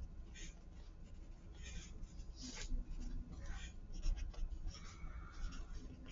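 Pencil writing on paper: quiet, irregular scratching strokes as an equation is written out by hand.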